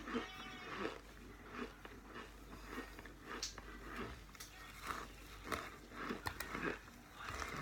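A person biting and chewing crunchy chunks of cornstarch close to the microphone, with irregular crunches about one to two a second.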